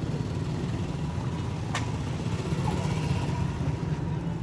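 Steady low rumble of roadside background noise, with a single sharp click a little under two seconds in.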